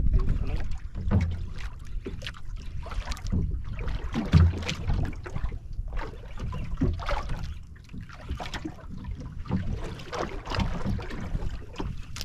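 Water slapping and splashing against the hull and outriggers of a small outrigger boat in open-sea swell, in irregular splashes about a second apart, with wind on the microphone.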